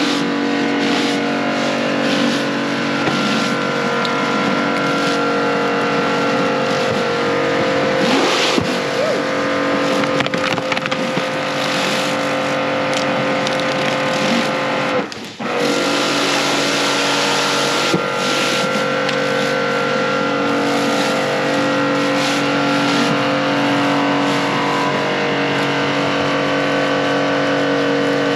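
Pressure washer running, with a steady motor whine under the hiss of the water spray; the sound dips out for a moment about fifteen seconds in.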